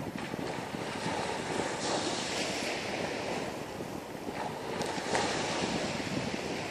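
A steady rushing noise, swelling louder about two seconds in and again about five seconds in.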